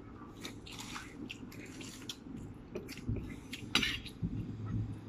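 Spoons and forks clinking and scraping against plates and a metal bowl during a meal: scattered light clinks, with a sharper one just before four seconds in.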